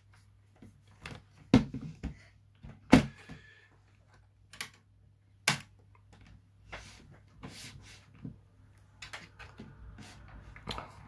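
Irregular sharp clicks and knocks, the loudest about one and a half and three seconds in, over a faint steady low hum.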